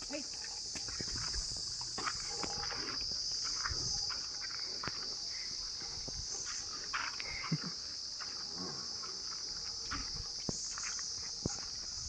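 A herd of water buffaloes walking on a dirt lane, with scattered hoof steps and knocks. A steady high insect buzz runs underneath.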